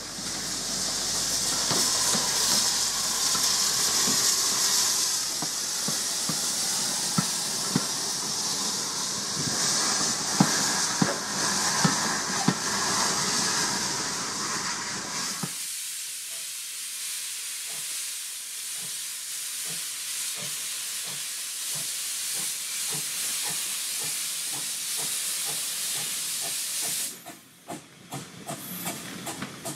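Hudswell Clarke 0-6-0 saddle tank steam locomotive hauling coaches past, with a loud, continuous hiss of escaping steam and scattered clicks and knocks of wheels running over the track. The sound changes abruptly about halfway through and dips briefly near the end.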